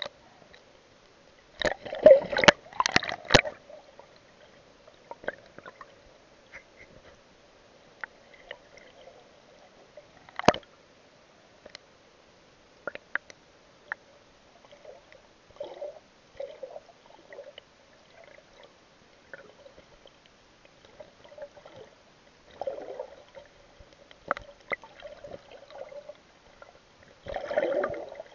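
Muffled water sloshing and gurgling heard through a budget action camera held underwater, over a faint steady hum. Splashes about two seconds in and again near the end, a sharp knock about ten seconds in, and scattered small ticks between.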